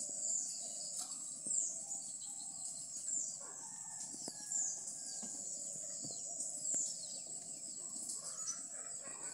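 Rural background sound: chickens clucking and birds chirping, with short high chirps repeating about once a second over a steady high-pitched hum.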